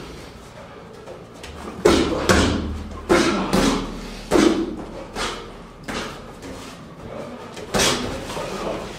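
Boxing gloves landing punches during sparring: about eight sharp smacks at irregular intervals, the first nearly two seconds in, each with a short echo from the gym.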